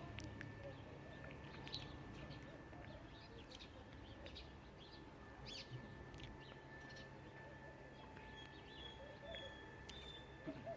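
Faint scattered chirps of small birds, short calls that rise and fall, over a low, steady background hum.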